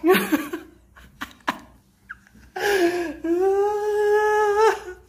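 Baby's voice: a short cry at the start, then a long drawn-out wail held at one high pitch for about two seconds, beginning a little after halfway. Two faint clicks come between them.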